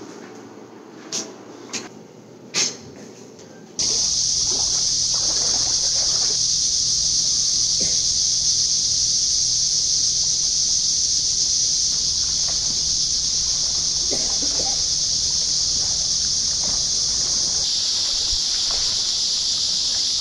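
A few short sharp taps in a quiet room, then from about four seconds in a steady, high-pitched insect chorus at dusk, with a low rumble beneath it and faint splashes of someone swimming.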